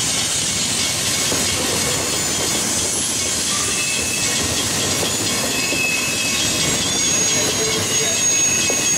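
Union Pacific freight train's double-stack container well cars rolling past: a steady rumble and rattle of steel wheels on rail, with thin high-pitched wheel squeals coming and going in the second half.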